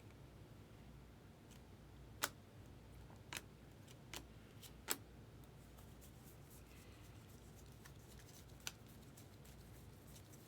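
Trading cards being handled: a few sharp clicks of card stock over a hushed room, the loudest about two and five seconds in, with lighter ticks near the end.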